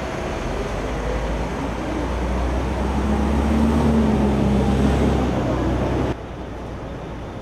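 City street noise dominated by a heavy vehicle's low engine rumble with a steady hum. It grows louder over a few seconds and cuts off abruptly near the end.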